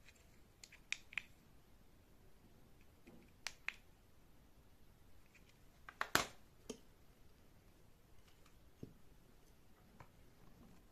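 Sparse small clicks and taps over quiet room tone: two quick pairs in the first four seconds, a louder cluster about six seconds in, then a few single faint taps.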